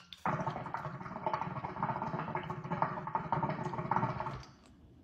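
Close rustling and clattering handling noise on a phone's microphone, stopping about four and a half seconds in.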